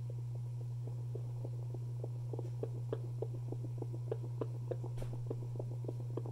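Fetal Doppler speaker held to a pregnant French Bulldog's belly: a steady low hum with a fast, regular pulsing of about three beats a second that grows clearer from about two seconds in. It is a puppy's heartbeat, counted at around 210 beats a minute.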